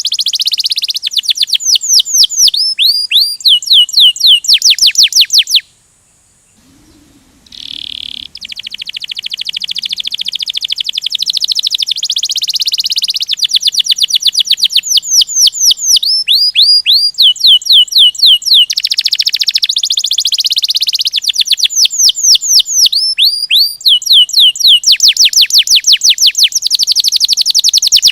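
Domestic canary singing a rolling song: fast trills of repeated downward-sweeping notes, broken by a pause of about two seconds a few seconds in, then picking up again.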